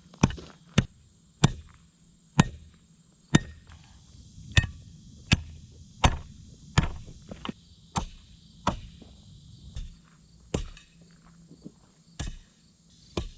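Hand tamper striking a gravel base over and over, a little over one sharp strike a second, compacting the gravel.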